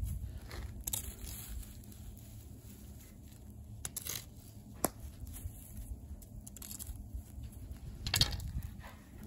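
Wood fire burned down to glowing embers, crackling with scattered sharp pops and ticks, the strongest about four seconds in and again about eight seconds in, over a low steady rumble.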